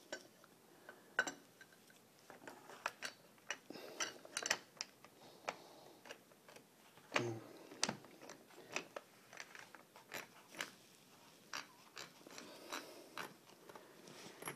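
Irregular metal clicks and knocks of a Mossberg Maverick 88 shotgun's barrel being handled and slid back into the receiver over the magazine tube, the loudest knocks about a second in and around seven to eight seconds in.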